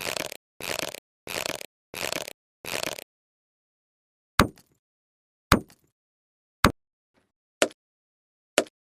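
Edited sound effect: five short hissing bursts in quick succession, then five sharp knocks about a second apart, with dead silence between each sound.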